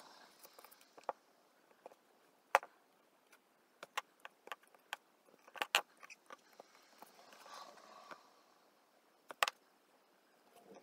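Paper card being handled on a table: a few sharp light taps and clicks, with smaller ticks and soft rustling in between.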